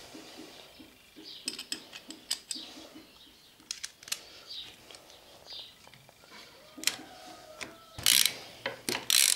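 Hand tools working on a small engine: a ratchet wrench clicking in short runs, with sharp metal clicks and a louder clatter of parts near the end.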